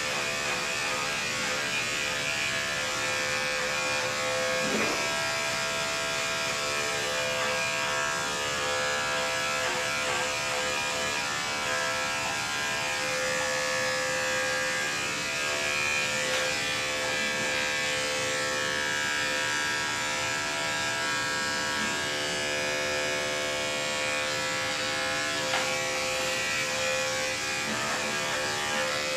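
Andis five-speed electric dog clipper running with a steady hum as it clips through a curly dog's coat.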